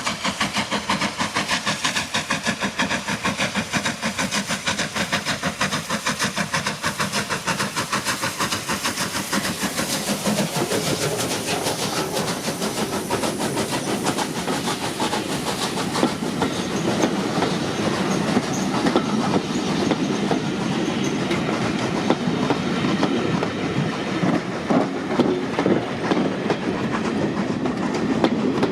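Steam train passing at speed: the locomotive's fast, even exhaust beats give way, around halfway through, to the coaches rolling past with wheels clattering over rail joints.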